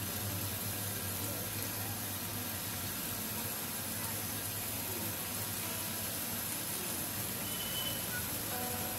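Breaded jackfruit-seed koftas frying in hot oil in a pan: a steady sizzle while more koftas are added, with a steady low hum underneath.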